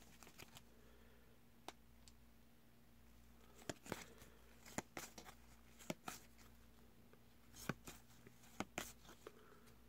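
Near silence: faint, irregular clicks and slides of trading cards being flipped one at a time through a small stack in the hands, about ten in all, over a low steady hum.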